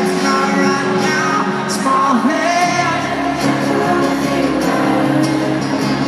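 Live pop music performed on stage: singing over acoustic guitar.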